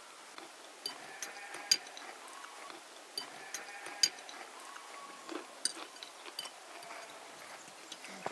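Porcelain tea cups and spoons clinking at a table, a string of short sharp clinks with two louder ones a couple of seconds apart. Faint rising and falling calls come and go behind them.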